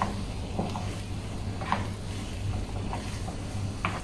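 Wooden spatula stirring fried pieces around a frying pan: a handful of short scrapes and knocks, one every half second to a second, over a steady low hum.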